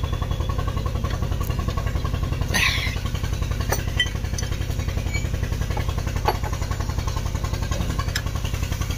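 An engine idling steadily with an even low pulse, with a few sharp metal clicks of a spanner on the timing-belt tensioner.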